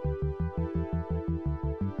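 Electronic background music: held synthesizer chords over a fast, even bass pulse of about six beats a second.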